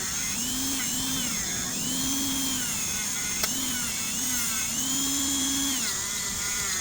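Small electric polishing tool running with red rouge compound on copper. Its whine repeatedly sags in pitch and recovers as it bears on the piece and eases off.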